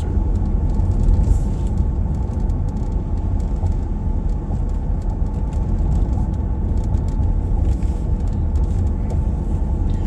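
Steady low rumble of a vehicle driving along a road at an even speed, heard from inside the cab: engine and tyre noise.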